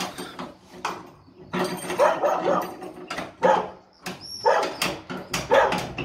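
A key clicks and rattles in the stiff old lock of a heavy wooden church door, with several sharp clicks and knocks. A dog barks and whines in short calls over it.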